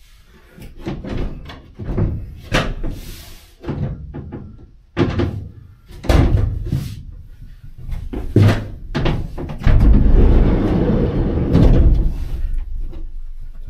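Knocks and thuds of a plywood lining panel being handled and pressed into place against a van's sheet-metal cargo wall, with bumps and steps on the bare ribbed metal floor. A louder, longer stretch of bumping and scraping comes about two-thirds of the way through.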